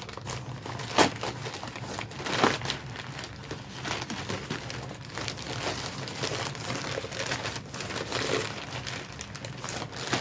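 Packing material crinkling and rustling as a parcel is unwrapped by hand, in an irregular run of crackles with sharper snaps about a second in and again around two and a half seconds.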